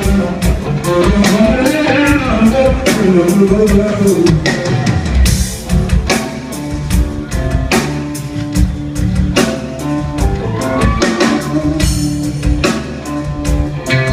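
Live rock band with electric guitar, bass and drum kit. A drawn-out sung line ends about four seconds in, and the band plays on without vocals.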